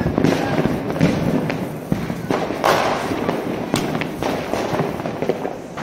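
Firecrackers going off: a string of sharp bangs and crackles at irregular intervals, with a bigger burst about two and a half seconds in.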